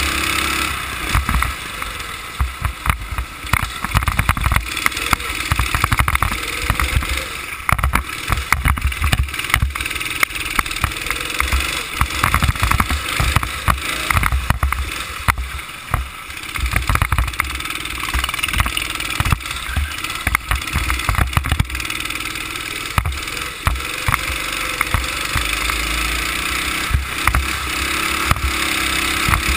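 Go-kart engine running at racing speed, its revs rising and falling through the corners, picked up close by a camera mounted on the kart. Irregular low buffeting from wind and jolts on the microphone runs under it.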